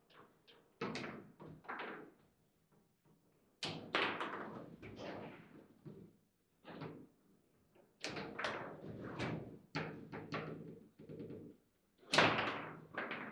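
Table football game in play: irregular sharp knocks and clacks as the rod-mounted figures strike the ball and the ball hits the table's walls, with brief pauses, the loudest about four seconds in and again near the end.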